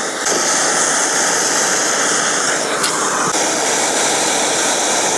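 Handheld propane torch burning, a steady, even rushing noise as its flame heats a copper pipe joint for soldering.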